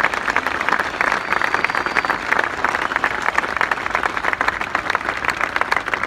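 A large crowd applauding, dense steady clapping throughout.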